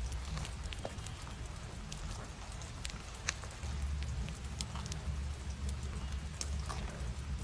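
Scattered light ticks and crinkles of paper and stationery being handled, irregular like patter, over a low steady rumble that gets louder about halfway through.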